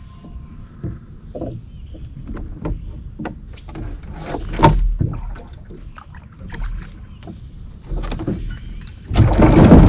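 Irregular knocks and water noise from a small one-man boat being handled. A much louder rushing noise starts near the end. A faint steady high tone runs under part of it.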